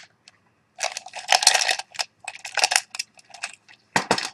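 A cup full of pens and markers being handled, the pens clattering and rattling against one another, with a couple of sharp knocks near the end as the cup is set down.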